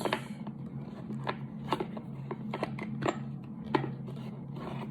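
Hands handling small gun parts, making scattered light clicks and taps over a steady low hum.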